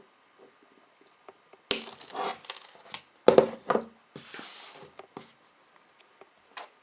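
Crimp tool's cutting blade snipping through the flattened ribbon of CAT5 wire ends: two sharp snaps about a second and a half apart, with rustling handling of the tool and cable around them.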